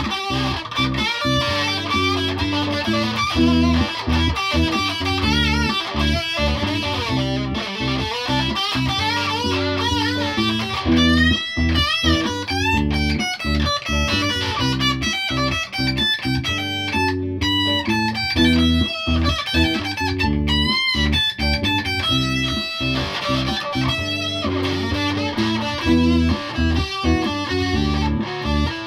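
Aria Pro Thor Sound electric guitar played lead through an amp, with string bends and vibrato, over a steady bass line.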